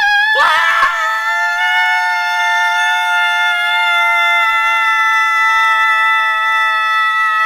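A man's voice singing one long, loud, high note, held about eight seconds, sliding up into it and sagging down in pitch as it ends.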